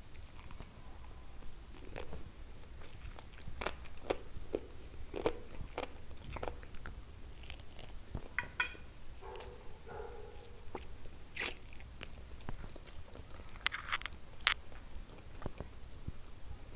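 Close-miked eating of chicken wings and stewed eggplant: moist chewing broken by crisp bites and crackles, with one sharp crack, the loudest sound, about eleven and a half seconds in.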